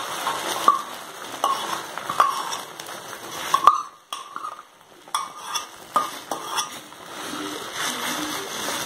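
Egg and drumstick-leaf omelette mixture sizzling as it lands on a hot oiled iron dosa pan, with about eight sharp metal clinks of a spoon against the steel tumbler and pan as the mixture is scraped out and spread. The sizzle drops away about four seconds in and returns stronger near the end.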